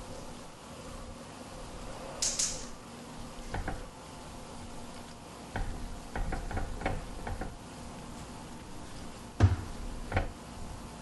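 Soft knocks and taps as a gloved hand sets slices of sausage and Spam into a Staub enamelled cast-iron pan, the loudest knock about nine and a half seconds in. A brief rustle comes about two seconds in, over a faint steady hum.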